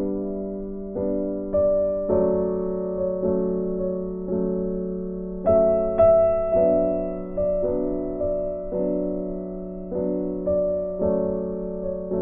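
Background piano music: gentle notes and chords, each struck and left to fade, with a louder chord about halfway through.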